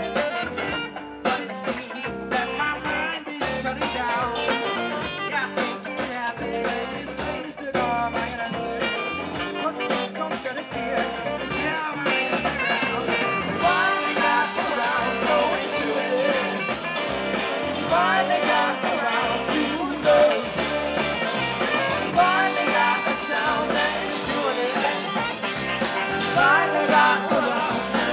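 Live rock band playing an instrumental passage: electric guitars, bass guitar and drum kit, with a tenor saxophone.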